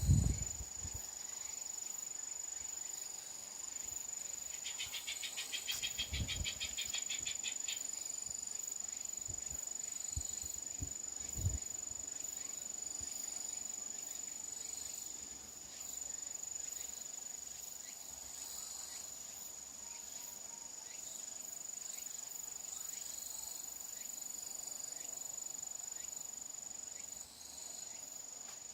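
Insects trilling steadily in one high, unbroken note, joined by a rapid pulsing insect call from about five seconds in to about eight seconds in. A few low thumps around the start, near six seconds and near eleven seconds.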